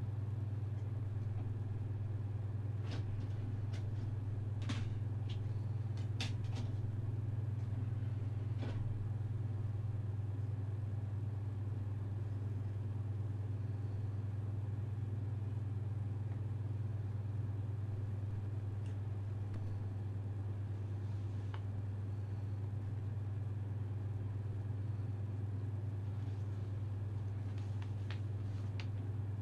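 A steady low hum, with a few faint clicks and small knocks in the first nine seconds and a couple more near the end.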